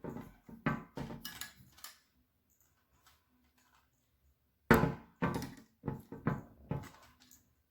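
Hard knocks and clatters from ring light parts and the stand being handled and fitted together. A cluster of knocks comes first, then a short quiet, then a run of about five sharp knocks, the first the loudest.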